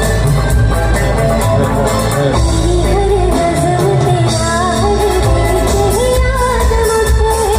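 Loud live singing over amplified music with heavy bass; a voice enters about two and a half seconds in with a wavering melody.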